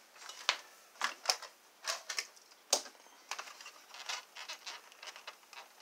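Hard plastic parts of an Able Star aircraft-carrier transforming robot toy clicking and clacking as the toy is picked up and handled: a string of irregular sharp clicks.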